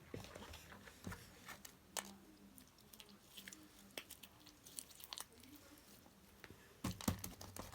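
Slime being squeezed and worked by hand: faint, irregular crackles and clicks, with a few louder ones near the end.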